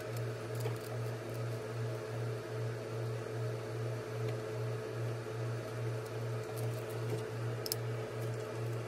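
A steady low hum pulsing about two and a half times a second, with a fainter steady higher tone above it, and a few faint clicks from handling.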